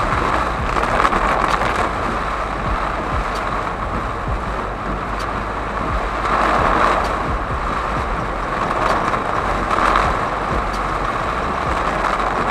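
Heavy rain pelting a car's windscreen and roof, heard from inside the moving car together with tyre and road noise, with faint ticks about every two seconds as the wipers sweep.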